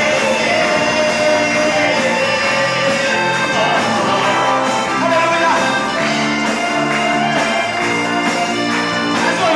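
Live gospel worship music: instruments playing sustained chords, with singing.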